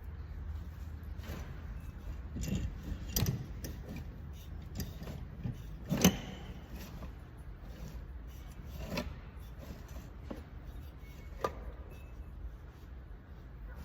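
Scattered knocks and clinks from handling the parts of a small engine being taken apart, with the loudest knock about halfway through, over a steady low hum.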